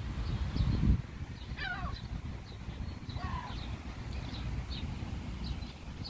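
Gulls calling twice, about a second and a half apart, each call a quick run of falling notes. A brief low rumble comes in the first second.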